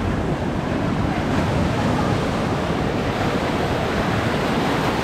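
Sea surf washing and breaking over a rocky shoreline at a rising tide, a steady rush of water.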